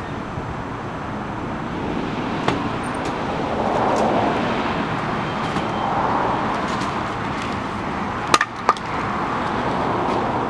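Steady outdoor traffic noise that swells gently a couple of times. About eight seconds in come two sharp clacks close together, from a glass shop door swinging shut.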